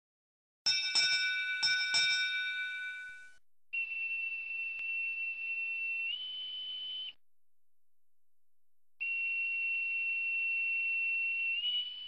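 About four quick bell-like strikes ring out together, then fade. After that a steady high-pitched whine starts, steps up slightly in pitch, breaks off for a couple of seconds, and returns.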